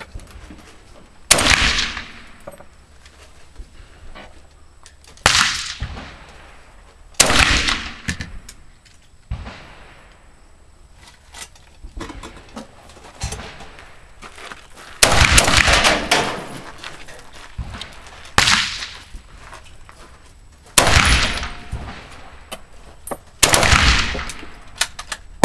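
SKS semi-automatic carbine in 7.62x39 firing about seven shots at uneven intervals of one to several seconds, each shot trailing off in echo.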